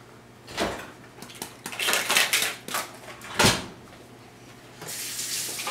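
An egg being knocked against the rim of a small metal measuring cup as a child tries to crack it: two sharp knocks, the louder about three and a half seconds in, with softer handling noises between.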